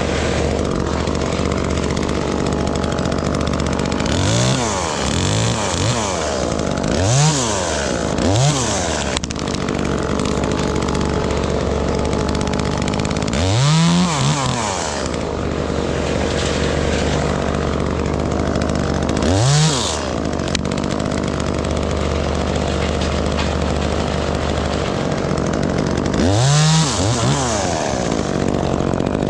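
Gas chainsaw idling and revved up to full throttle about eight times in short bursts of a second or so, the pitch rising and falling each time as it cuts wood.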